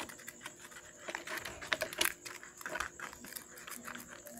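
Small irregular plastic clicks and crinkling of sandpaper as the contacts of a disassembled car power-window switch are handled, ready for sanding to clean a contact plate that shows no continuity.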